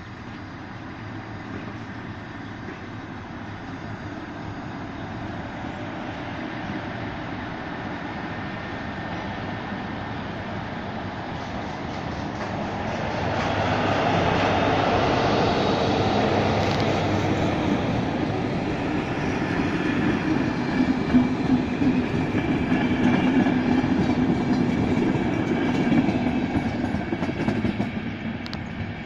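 Czech passenger train of blue České dráhy coaches rolling past at low speed. Its rumble builds over the first half and stays loud, with the wheels clacking over rail joints in the second half and a few sharper knocks.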